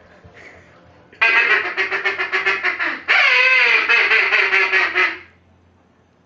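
Two long runs of rapid, loud duck quacks, starting about a second in. The second run falls in pitch as it goes.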